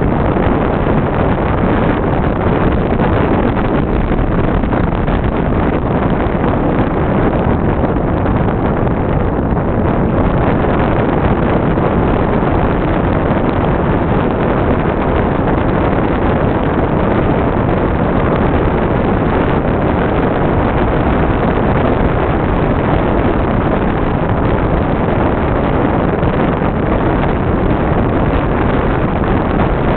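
Steady rumbling wind and road noise from riding along a paved road, with wind buffeting the microphone.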